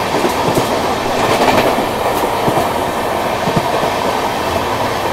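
Two express passenger trains running side by side at speed, about 90–100 km/h, heard from one of them: a steady rushing rail noise with wheel clatter over the rail joints.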